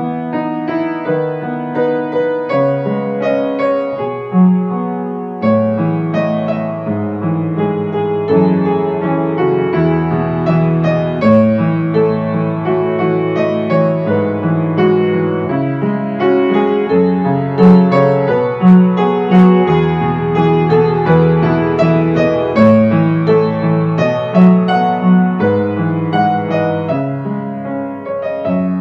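Ambient piano music: a slow, gentle melody of struck notes over held low bass notes.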